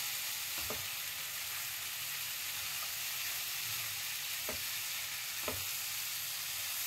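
Jackfruit curry sizzling in a nonstick frying pan while a wooden spatula stirs it, with a steady frying hiss and a few soft knocks of the spatula against the pan.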